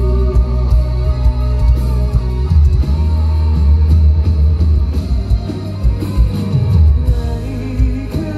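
Live rock band playing through a loud sound system: electric guitar, bass and drums, with a male singer's voice over the top.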